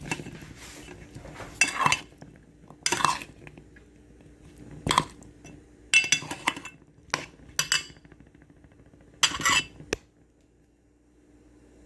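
A spoon clinking and scraping against a pan in irregular strokes while chickpeas with butter and bouillon are stirred. The strokes stop about ten seconds in.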